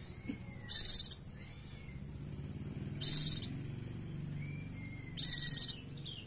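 Female white-eye (pleci) giving three short, high buzzy calls about two seconds apart, each about half a second long, with faint thin whistles between them. These are the female's calls to a male, in breeding condition.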